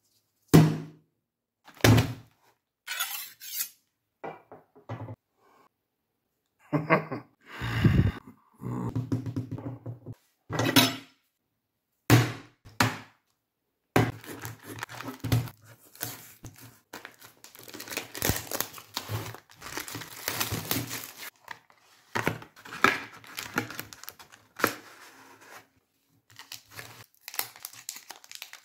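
Knocks and thuds of a booster box being handled on a table, then from about halfway a long crinkling rustle as the plastic shrink wrap is cut and torn off the box.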